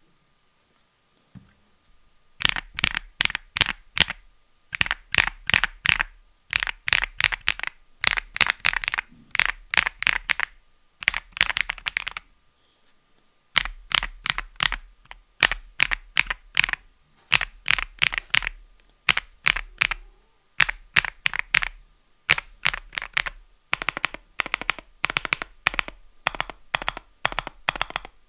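Typing on a stock Epomaker x Feker Galaxy80 mechanical keyboard with Feker Marble White switches: quick runs of keystroke clacks, starting about two seconds in, with a brief pause about halfway through.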